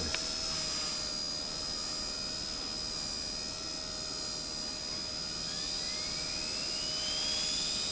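Radio-controlled model helicopters in flight, their motors and rotors making a steady high-pitched whine. A second whine rises in pitch from about halfway through.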